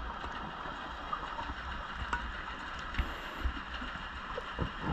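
Underwater ambience heard through a diver's camera housing: a steady hiss and low rumble, with a few faint clicks.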